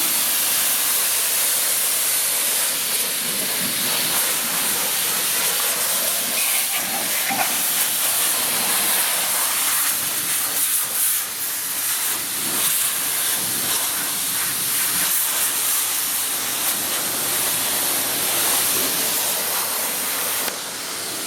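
High-pressure spray from a coin-operated car wash wand, a steady loud hiss of water jetting onto a BMX bike's frame and blasting off caked grime.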